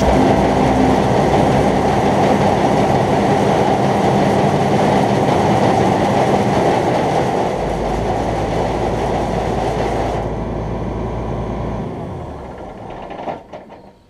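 Tractor-driven grain auger running, with shelled corn being unloaded from a grain truck into its hopper: a dense, even rattling rumble. The sound thins out about ten seconds in and fades away over the last few seconds.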